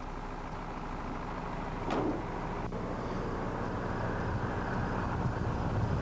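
Tandem-axle dump truck's engine running steadily, a low even hum, with a brief rushing sound about two seconds in.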